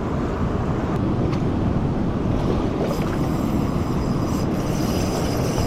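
Steady rush of water pouring through a spillway: a loud, even roar. Faint, thin high tones join about three seconds in.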